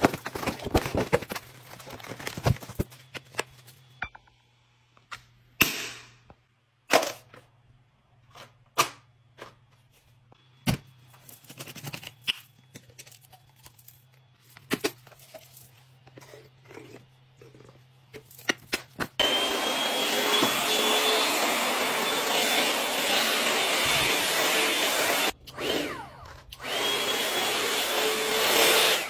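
Scattered clicks and knocks of a Shark VacMop being unpacked and its cleaner bottle opened. About two-thirds of the way in, the VacMop's vacuum motor starts running steadily as it is pushed across the floor, cutting out briefly about three-quarters of the way through.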